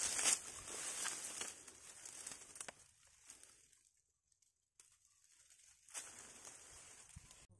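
Dry grass and marsh vegetation rustling and crunching underfoot as someone walks through a shallow, waterlogged grassy patch. The rustling is loudest at the start and dies away, goes almost quiet for a couple of seconds, then comes again about six seconds in.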